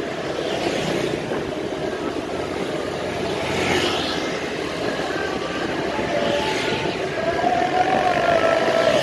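Steady road and engine noise from travelling through traffic, with vehicles passing about three times. Faint wavering tones come in over the noise near the end.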